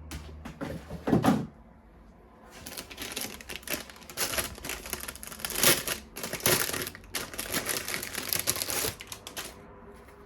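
Plastic toy parts and their packaging being handled: a few sharp clicks and a heavier knock about a second in, then a long dense run of quick clicks and rustles that stops near the end.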